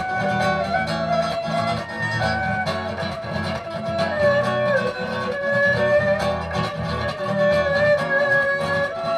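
Erhu playing a held melody that slides between notes, over acoustic guitar chords.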